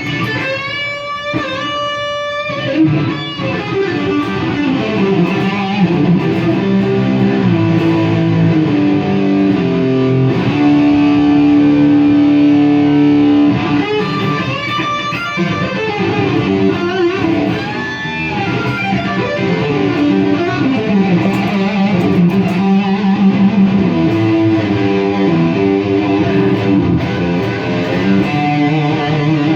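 Takamine GX-100 electric guitar with its original DiMarzio pickups, played clean-ish lead lines through a small lunchbox-style tube amp. It opens with wavering, bent and vibrato notes and holds one long sustained note about halfway through.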